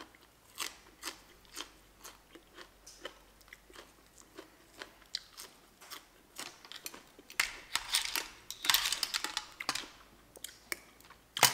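Close-up chewing of a crunchy raw green vegetable, crisp crunches coming two or three times a second, with a louder, denser stretch of crunching about eight seconds in.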